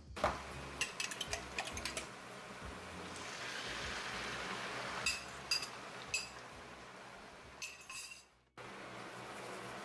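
A metal spoon clinking against a glass mixing bowl of beaten eggs, then the eggs pouring into a hot skillet with a soft sizzle, and more clinks and scrapes of the spoon on the bowl as it empties.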